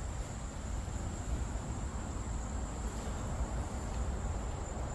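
Outdoor ambience: a steady, high insect trill, with a low rumble underneath.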